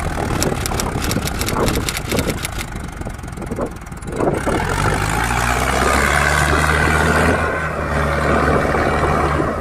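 Mahindra Arjun tractor's diesel engine labouring under a heavy trolley load, with a fast ticking rattle over the first few seconds. About four seconds in, the engine revs up and holds a steady high note.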